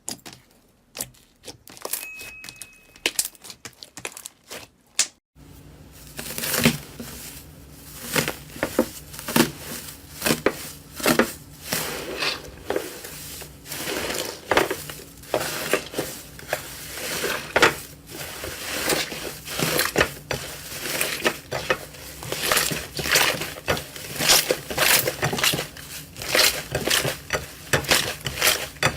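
Slime being squeezed and pressed by hand, giving sharp clicks and crackling pops: a few scattered clicks at first, then a dense, continuous crackle from about five seconds in.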